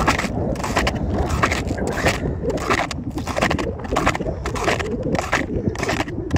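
Snowshoes crunching on snow in steady walking steps, about two a second, with wind rumbling on the microphone.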